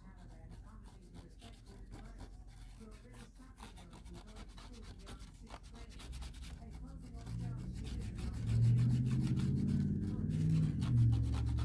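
Cotton swab rubbing and scrubbing over the dusty surface of an old model ship, faint and scratchy. About seven seconds in, a louder low rumble comes in and becomes the loudest sound.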